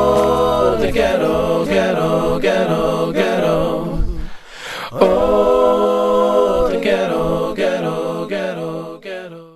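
Wordless sung vocal harmony closing the song: long held 'oh' notes that break off briefly about four seconds in, resume, then fade out near the end. Low backing tones drop out about a second in.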